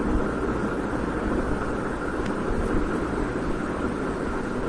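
Steady low-pitched background noise on an open microphone, even and unchanging, with no speech.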